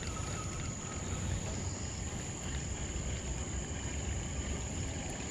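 Steady low rumble of a small boat under way through the water, with a thin, steady, high insect buzz over it.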